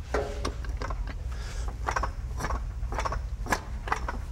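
Irregular metallic clicks and clunks as a rebuilt NP241 transfer case is wiggled and rotated against the back of the crawl box to line it up and seat it, over a low steady hum.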